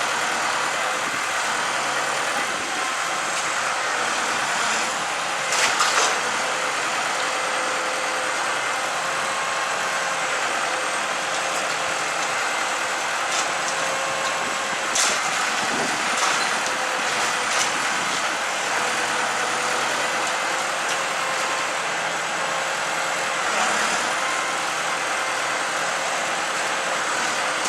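Large open bonfire of logs burning steadily, with a few sharp cracks from the wood now and then.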